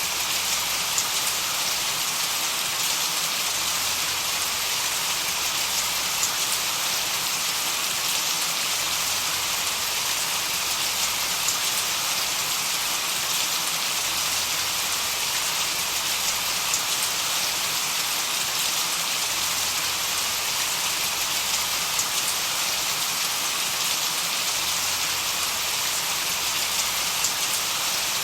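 Steady, even hiss of rain, with a faint sharp drop tick now and then.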